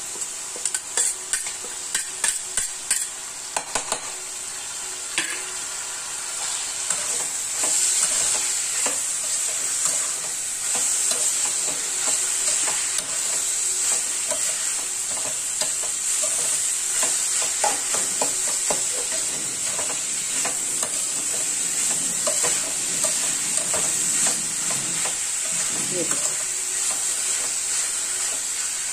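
Grated turnip, peas and tomatoes sizzling and frying in a metal kadhai, stirred with a metal spatula. For the first few seconds the spatula clicks and scrapes sharply on metal, then the steady sizzle goes on under lighter stirring clicks.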